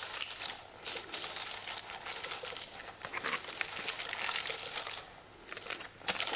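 Buttered kitchen paper rubbing and crinkling around the inside of a baking tin as it is greased, in short wiping strokes with a brief pause near the end.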